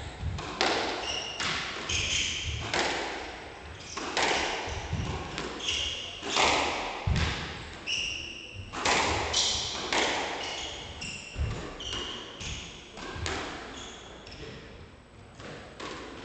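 Squash rally: the ball cracks off the rackets and walls roughly once a second. Between the hits, court shoes give short high squeaks on the wooden floor.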